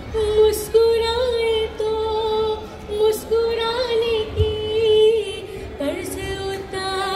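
A woman singing a Hindi song melody solo into a microphone, in long held notes with slight wavers of pitch and short breaks between phrases.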